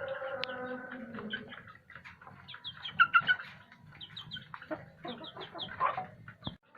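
Village chickens clucking, with many short high chirps throughout and a few louder calls about three seconds in and again near six seconds.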